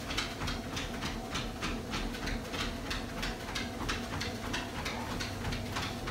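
Dog's paws padding on a running treadmill belt, about three to four steps a second, over the steady hum of the treadmill's motor.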